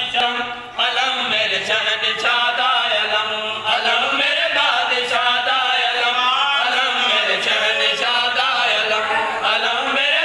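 Several men's voices chanting a qaseeda (devotional Urdu/Sindhi poem) together, a lead voice with the others joining in a sung refrain, with no break in the singing.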